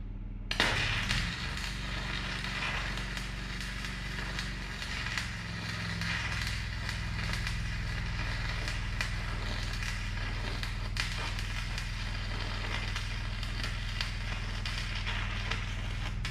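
Electric arc welding: a steady crackling arc that strikes about half a second in and keeps running. A bead is being laid on a worn bearing race in a tractor steering knuckle so the race will shrink and can be popped out.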